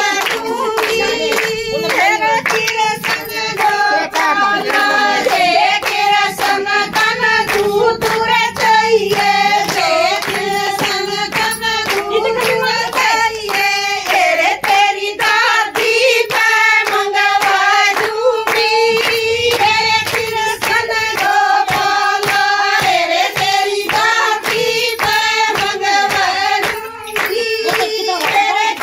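Women singing a Haryanvi folk bhajan to a steady beat of hand claps.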